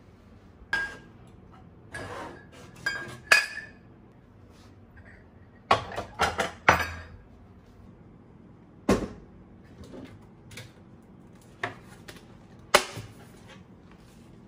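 Dishes and kitchenware being handled and set down on a countertop: scattered clinks and knocks, some with a brief ringing note, with a quick run of them about six seconds in.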